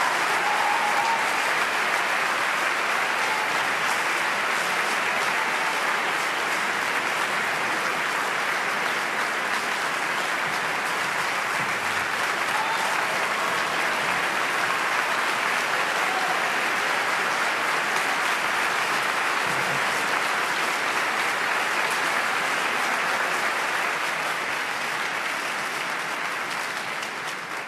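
A large concert-hall audience applauding steadily after the performance, fading out near the end.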